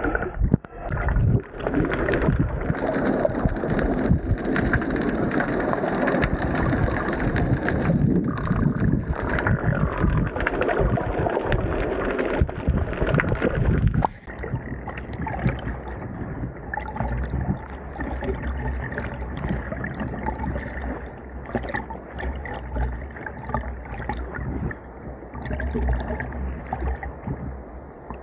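Water splashing and churning against an action camera carried by a swimmer kicking with fins, loud and dense with many small splashes. About halfway through it drops suddenly quieter, to softer lapping and small splashes.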